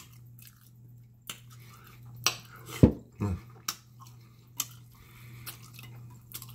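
Wet mouth smacks and finger-licking sounds from eating pig tail by hand, a handful of sharp separate clicks scattered through, over a steady low hum.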